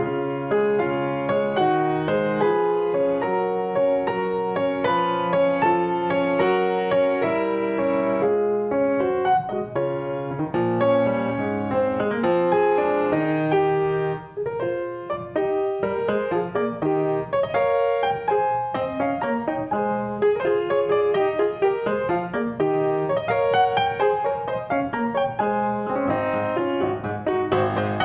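Piano playing a continuous flow of notes and chords.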